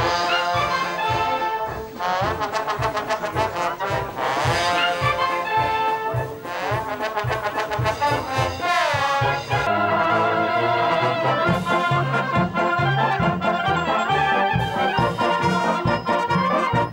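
Brass band playing a lively tune, trombone and trumpet to the fore over a steady bass beat, with a long downward slide about halfway through.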